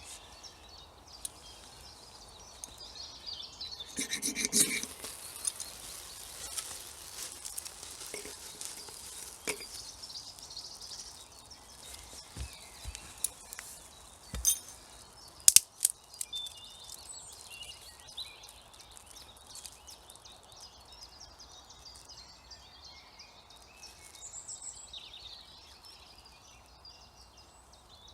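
Handling sounds of lighting a campfire: a loud scrape about four seconds in, a knock and two sharp clicks a little past halfway, then quieter rustling over a faint outdoor background.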